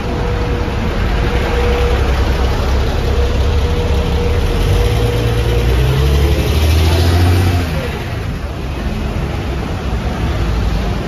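Street traffic beside buses at a stop: engines running with a steady whine, then a motor vehicle accelerating past close by, loudest about seven seconds in before easing off.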